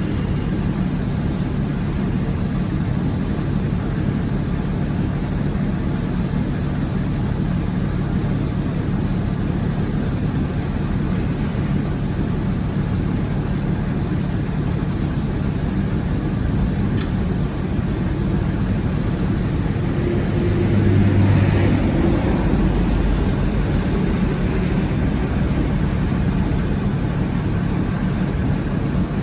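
Kubota rice combine harvester running steadily, its diesel engine giving a continuous drone that swells briefly about two-thirds of the way through.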